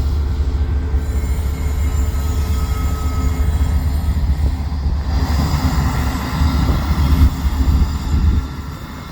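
A train rolling past: a steady low rumble of railcars and wheels on the rails, growing rougher midway and easing off near the end.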